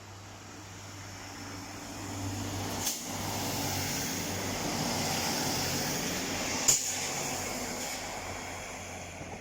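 A train passing by, the rumble growing louder, peaking midway and fading away, with two sharp knocks about three and six and a half seconds in.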